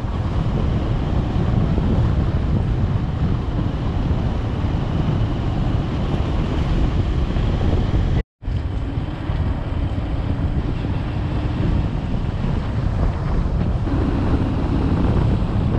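Wind buffeting the microphone of a camera on a moving motorcycle, a steady heavy rumble with the bike's engine humming faintly underneath. The sound breaks off for a moment about eight seconds in, then carries on the same.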